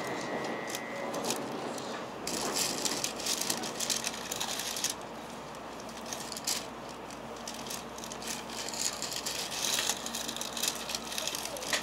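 Cabin noise inside a Shinkansen passenger car at the platform: intermittent rattling and clicking over a steady low hum that sets in about two seconds in.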